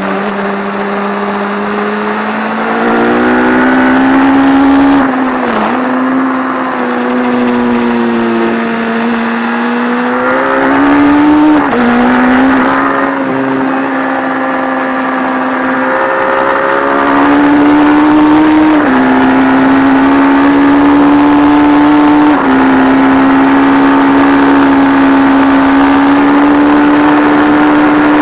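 1170 cc P&M Kawasaki four-cylinder race engine heard onboard at high revs under load. Its pitch climbs, then drops sharply and briefly at each of several gear changes.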